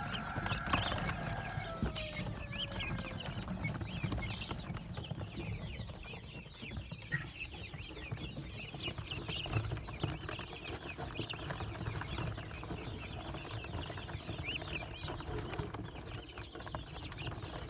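A flock of young guinea fowl keets peeping non-stop: many short, high chirps overlapping into a dense chatter.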